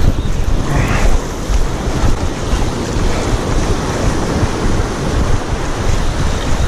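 Wind buffeting the microphone in a low, gusting rumble, over the wash of the sea at the water's edge.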